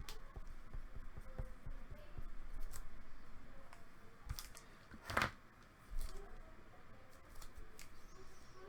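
Trading cards and their plastic holders being handled: scattered soft clicks and rubbing, with a sharper rustle about five seconds in.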